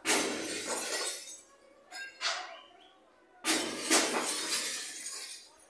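Glass shattering in a series of sudden crashes: a long one at the start, two short ones about two seconds in, and a longer one dying away from about three and a half seconds in. It is the sound of a supermarket's shop front being smashed.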